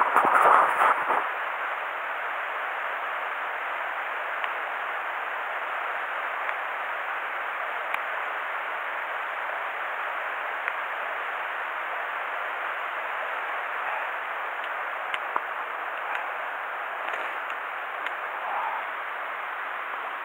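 Mountain stream water rushing steadily. A brief louder rustle in the first second.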